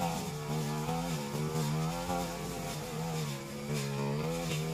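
Backpack brush cutter's small petrol engine running fast while slashing grass. Its pitch sags and climbs back again about once a second.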